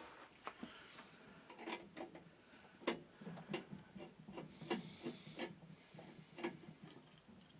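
Phillips screwdriver working screws out of a metal table fan's base: an irregular run of small clicks and knocks with some rubbing, about two a second.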